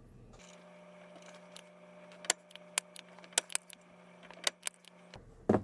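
A series of light, sharp clicks and taps, about a dozen, starting about two seconds in, from small tools being handled while working on a motherboard, over a faint steady hum.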